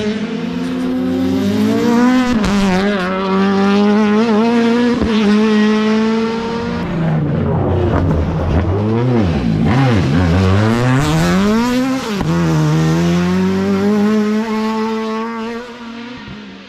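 Ford Escort Mk1 rally car's engine at high revs, rising in pitch as it changes up through the gears. About 8 to 10 s in the pitch drops sharply as the car slows for a corner, then it rises again as the car accelerates hard away, fading near the end.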